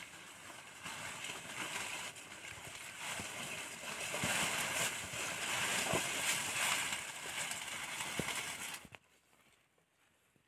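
Rain falling steadily in the forest, a hiss of many drops with small patters. It swells around the middle and cuts off suddenly near the end.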